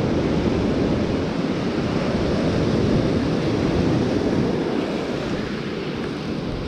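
Ocean surf breaking and washing up a sand beach, a steady rushing wash that eases slightly about five seconds in, with wind buffeting the microphone.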